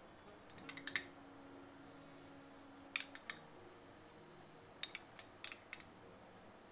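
A metal spoon clinking and tapping against ceramic bowls while sauce is spooned onto fried potatoes: a few light clinks about a second in, a couple more around three seconds, and a quick run of them near the end, over a faint steady hum.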